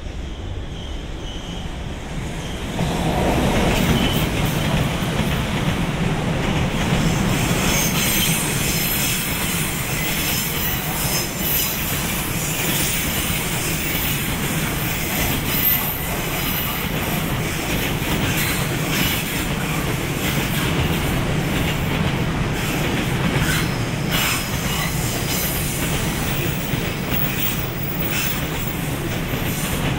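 Freight train of wagons rolling through the station, wheels clattering over rail joints and squealing. It grows sharply louder about two and a half seconds in as the wagons draw level, then keeps up a steady run of clicks and rumble.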